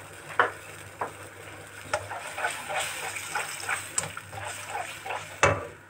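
A wet chicken, bacon and tomato-sauce mixture being stirred in a wok: liquid sloshing with scattered clacks of the utensil against the pan, the loudest clack near the end.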